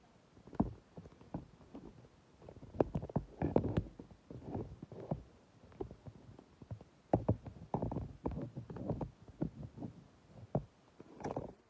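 Irregular bumps, knocks and rustles from a phone being carried and handled while walking on grass, with footsteps mixed in.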